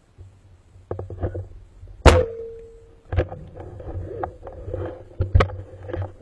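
Speargun heard underwater: clicks and knocks, then a loud sharp crack about two seconds in as the spear is shot, followed by a steady ringing tone for nearly a second and more knocks.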